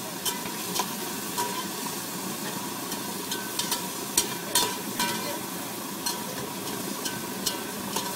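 Metal spoon stirring food in a steel cooking pot, scraping and clinking irregularly against the metal, over the steady hiss of a small gas stove burner.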